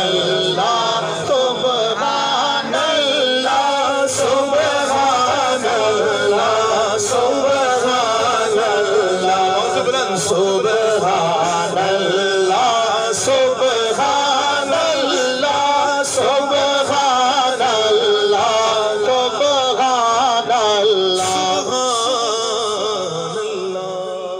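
A man singing a naat, a devotional Urdu-Punjabi poem, into a microphone in long winding melodic lines.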